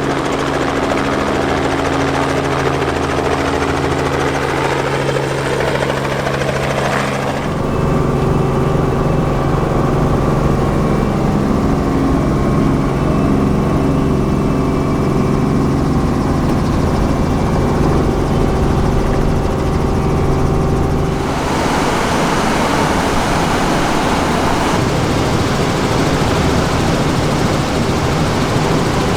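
Helicopter running loud and steady, its engine and rotor making a mix of steady tones over a broad rushing noise. The sound changes abruptly twice, about seven seconds in and again about twenty-one seconds in.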